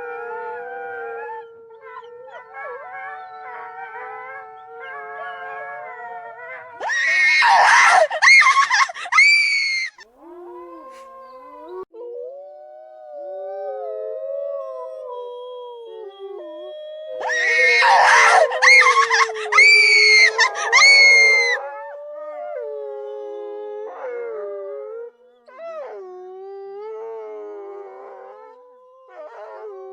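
Several canine howls layered over one another, long drawn-out tones gliding up and down in pitch, as a horror sound effect. Twice, about 7 and 18 seconds in, a loud harsh shriek lasting about three seconds cuts in over the howls.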